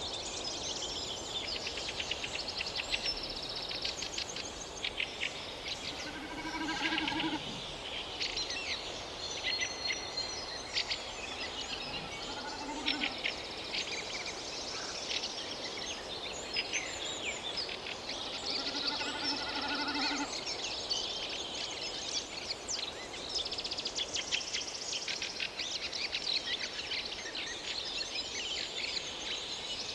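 Many birds chirping and trilling without a break. A lower, drawn-out animal call sounds three times, about a second each.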